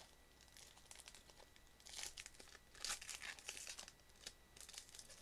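A foil trading-card booster pack being torn open and crinkled by hand: faint, short bursts of crinkling, the strongest about two and three seconds in.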